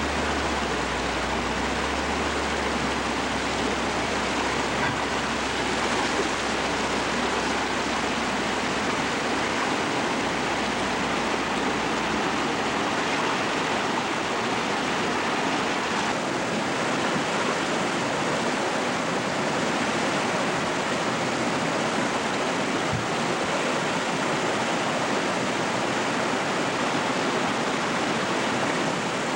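Rushing floodwater: a swollen river in muddy spate running hard, a steady loud roar of water.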